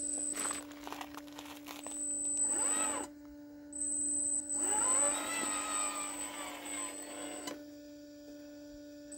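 Electric RC rock crawler's motor and gear drivetrain whining in short throttle bursts as it crawls over rock, the pitch rising and falling with the throttle and a thin high whine while it drives. It stops briefly about three seconds in and again near the end.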